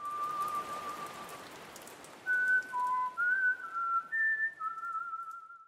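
A slow whistled tune of a few held, slightly wavering notes over a hiss of rain with scattered drop ticks. The rain is loudest at first and thins out as the whistling goes on, and the whole sound cuts off at the end.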